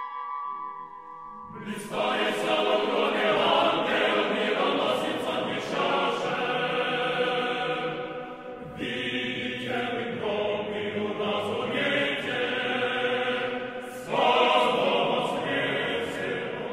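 A choir singing in several voices. It enters about two seconds in as the last of a bell's ringing dies away, and new phrases start about nine and fourteen seconds in.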